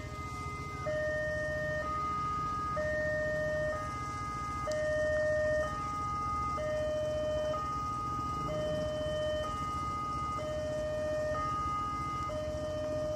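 Railway level-crossing warning alarm sounding: an electronic two-tone signal, a lower tone and a higher tone alternating, each held about a second, repeating steadily. It warns that a train is approaching and the barrier is closing.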